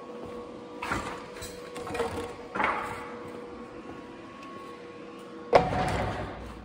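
Steel parts being handled and set down: a few knocks and scrapes, then one loud metallic bang about five and a half seconds in that rings briefly, over a steady faint hum.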